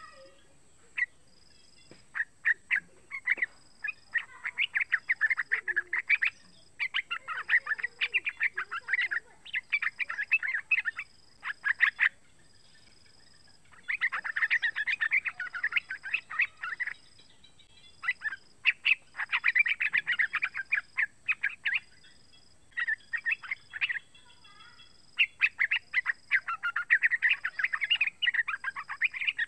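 Young yellow-vented bulbul (trucukan) singing: rapid chattering runs of short notes in phrases several seconds long, broken by brief pauses.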